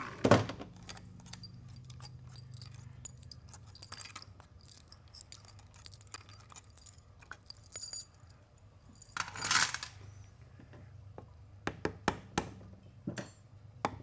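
Small metallic clinks and taps of bolts and parts being handled on a 4L65E transmission's aluminium valve body, scattered irregularly, with a few sharper clicks near the end. A low steady hum runs underneath, and a short noisy rush comes about nine and a half seconds in.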